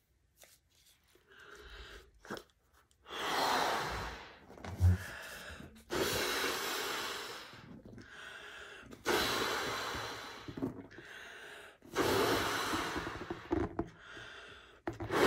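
A latex balloon being blown up by mouth: long rushing blows about every three seconds, each fading away, with quieter pauses for breath between them. A short, loud thump comes about five seconds in.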